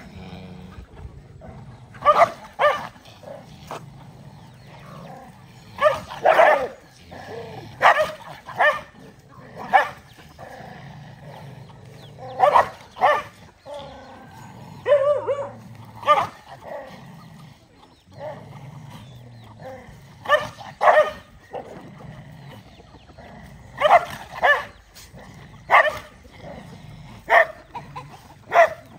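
Dogs barking at one another while crowding a shared food bowl, a squabble over food. Short sharp barks, often two in quick succession, come every second or two.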